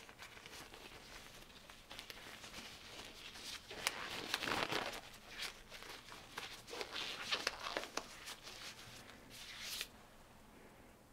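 Thin nitrile glove being stretched and pulled onto a hand: irregular crinkling, rubbery rustles with a few sharp clicks, loudest about four to five seconds in and dying down near the end.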